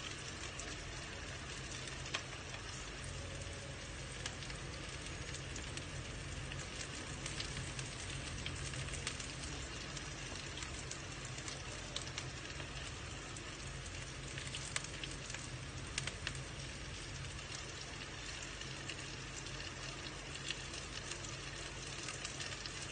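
Sliced onion and garlic sizzling in hot oil in a nonstick wok, a steady frying crackle with scattered small pops.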